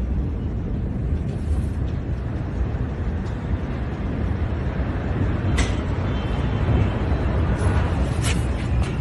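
Steady low rumbling noise picked up on a phone microphone, with a few sharp clicks about halfway through and near the end.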